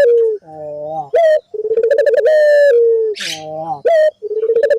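A puter (Barbary dove) cooing: a rolling, pulsing coo followed by a long falling note, repeated about every two and a half seconds. It is a loud, looped lure call meant to set other puter doves calling.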